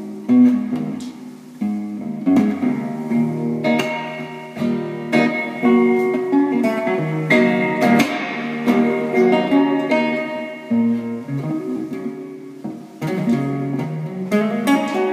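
Gut-strung classical guitar fingerpicked, a continuous run of single notes and chords ringing into one another, with added reverb.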